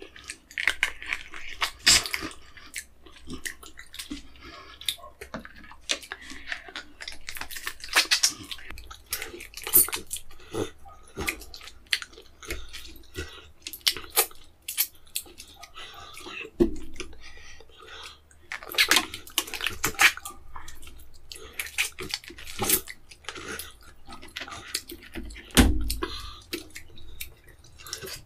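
Close-miked chewing of fish eaten by hand: wet, irregular smacking and clicking of lips and mouth, with some crunching. A dull knock about three-quarters of the way through is the loudest sound.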